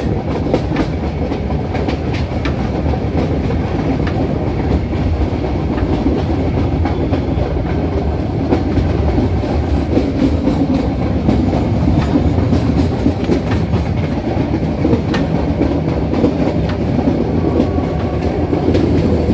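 Passenger train running, heard from inside the coach: a steady rumble of wheels on the rails with the clickety-clack of rail joints and small scattered ticks.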